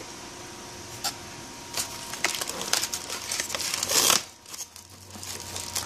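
Plastic packaging bag crinkling and rustling as it is handled and lifted out of a foam packing tray, in irregular crackles that are loudest about four seconds in, with a few light knocks in the first second.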